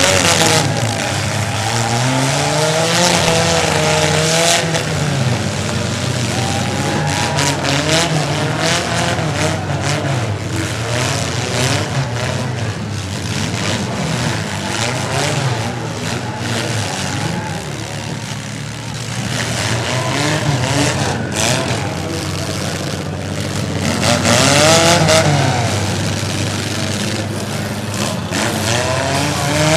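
Demolition derby cars' engines revving up and down over a continuous engine din, with sharp bangs now and then from cars colliding.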